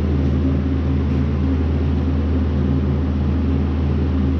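A machine running steadily: a low, even hum with a few steady tones and a hiss over it.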